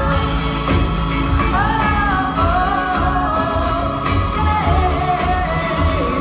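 Live band playing: a woman's lead vocal sings long, sliding held notes over electric guitar, keyboards, upright bass and drum kit.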